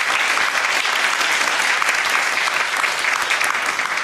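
Audience clapping together in sustained, steady applause at the end of a talk.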